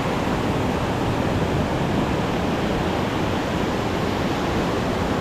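Rain-swollen mountain stream ripping past: a steady, unbroken rush of fast high water, running high after a torrential downpour.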